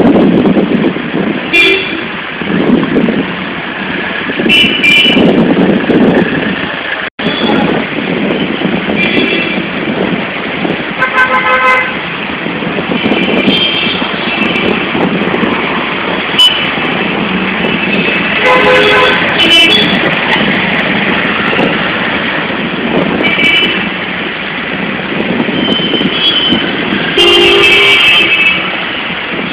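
Road traffic with a steady rumble and frequent vehicle horns, about ten short toots sounding every few seconds.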